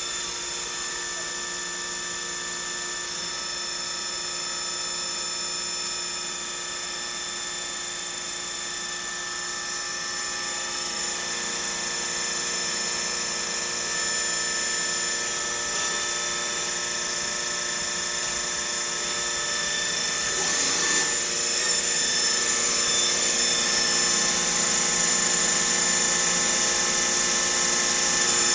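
Swiss-type CNC lathe running, a steady whine made of several fixed tones from its spindle and drives. About two-thirds of the way through it grows louder, and a high hiss joins it.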